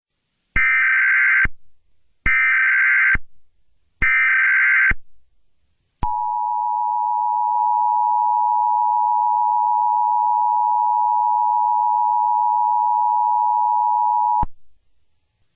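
Emergency Alert System SAME header: three bursts of warbling digital data tones, each about a second long. They are followed by the EAS two-tone attention signal, held steady for about eight seconds and then cut off. This marks the start of a new alert broadcast.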